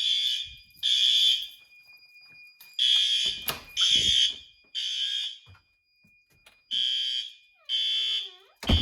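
Fire alarm horn strobes sounding a temporal-three evacuation signal: three short high-pitched horn blasts, a pause, then three more, repeating. Just before the end comes a short falling squeak and then a loud thump.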